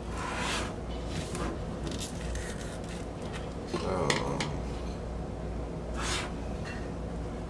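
Shrink-wrapped vinyl LP jacket being handled and turned over: the plastic wrap crinkles and rubs in several short bursts, with a fuller, louder handling sound about four seconds in.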